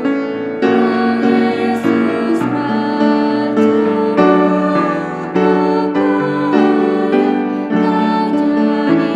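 A woman singing a slow hymn over sustained keyboard chords.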